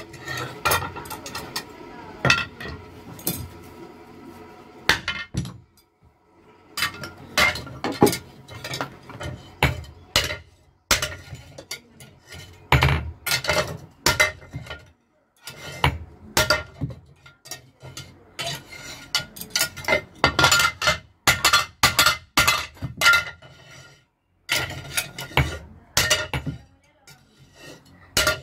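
Hand-hammer blows on a hot steel hoe blade resting on an anvil block: irregular runs of sharp metallic clinks and knocks, several strikes a second, broken by short pauses.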